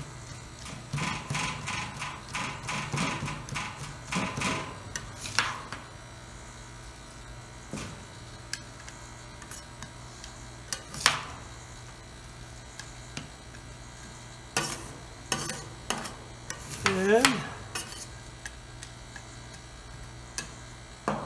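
Steel spatulas chopping and scraping ice cream mix on the stainless cold plate of a fried ice cream roll machine: a quick run of clacking strokes in the first few seconds, then scattered single taps. A low steady hum of the machine's refrigeration compressor runs beneath.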